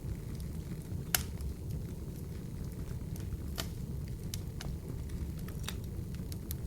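Wood fire burning in an open fireplace: a steady low rumble under scattered sharp crackles and pops, the loudest just over a second in.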